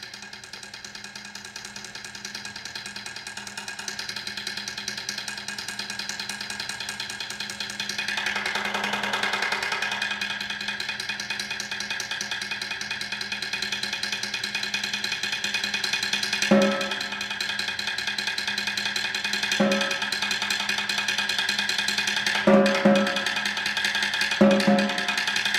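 Solo snare drum played in a sustained roll that swells gradually from soft to loud. Sharp accented strokes break the roll about 16 and 19 seconds in, then come in quick pairs near the end.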